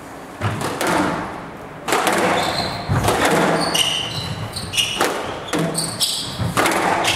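A squash rally: the ball cracking off rackets and the walls in sharp thuds about once a second, with short high squeaks of court shoes on the floor as the players move.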